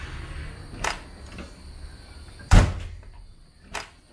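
Toyota AE86 door being worked open by its outer handle: a click near the start, a loud thunk about two and a half seconds in, and a lighter click near the end. This is the door being tried with a newly fitted Aisin door stabilizer.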